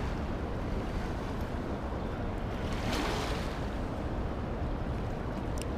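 Steady wind and surf noise, swelling briefly about three seconds in.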